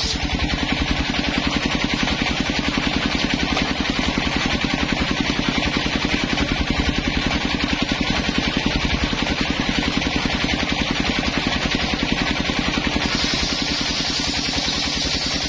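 Homemade table circular saw running steadily with a fast, even pulsing drone while its large blade rips coconut-wood planks; a brighter cutting hiss comes in near the end as a fresh slab is fed in.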